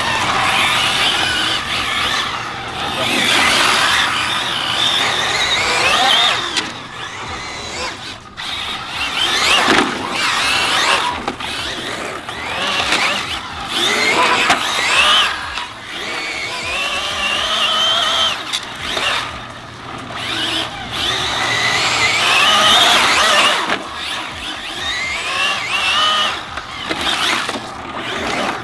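Arrma Felony 6S BLX 1/7-scale RC car's brushless motor whining up and down in pitch with repeated bursts of throttle, its tyres skidding and squealing on asphalt as it slides.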